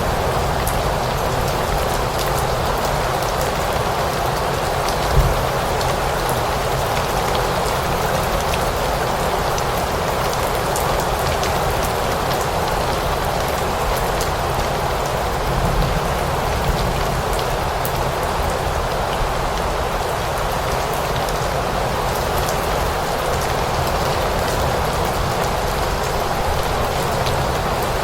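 Steady rain falling, an even hiss with scattered drops ticking through it. A brief low thump about five seconds in.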